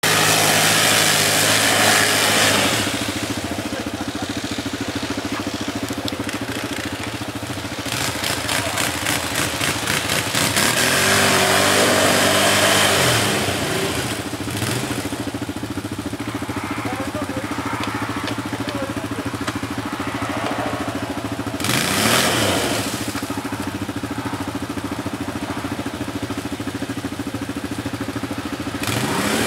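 Can-Am Outlander ATV's Rotax V-twin engine revving hard in bursts while its wheels churn through deep mud, dropping back to a lower, steady run in between. The loudest revs come near the start, for several seconds from about 8 s, briefly around 22 s and again at the very end.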